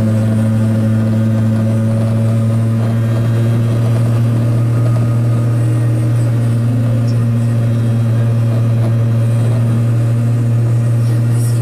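Piaggio Ape 50's small two-stroke single-cylinder engine running at a steady speed, a constant low drone with no change in pitch.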